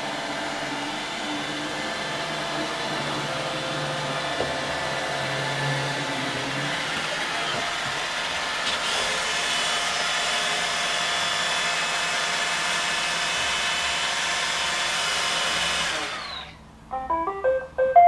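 iRobot Roomba 880 robot vacuum running steadily as it drives itself back to its docking station. About two seconds before the end its vacuum cuts off suddenly, and it plays a short rising tune of electronic notes ending on a held tone, the chime of a robot vacuum docking.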